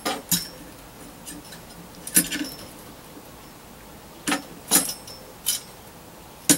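Small metal antenna parts (the gamma-match tube, a bracket and screws) clinking against each other as they are handled and fitted by hand, in a handful of separate sharp clinks a second or so apart.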